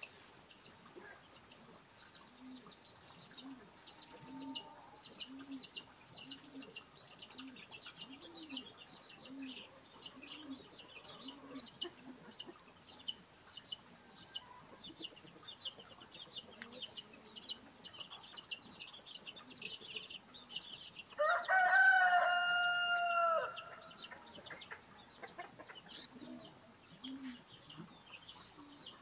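A rooster crows once, loud and about two seconds long, falling at the end, a little past two-thirds of the way through. Steady rapid high chirping runs underneath, and in the first half a low call repeats a little over once a second.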